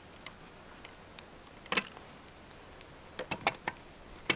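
Light metal clicks and taps from a chainsaw flywheel being turned and pressed by hand onto its crankshaft to line it up with the shaft key: one louder click about two seconds in, and a quick run of clicks near the end.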